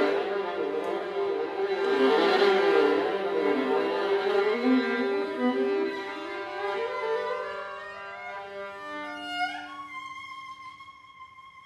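Viola bowed over a held low note, with wavering, sliding pitches above it; about nine and a half seconds in it slides quickly up to a high held note that fades away.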